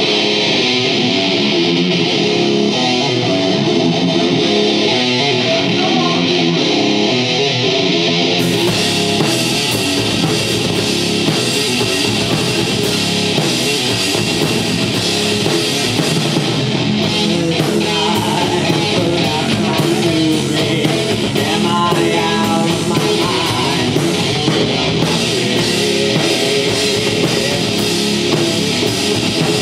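Live rock band playing loudly: electric guitar opening alone, then bass and drum kit with cymbals coming in together about eight seconds in, and the full band playing on.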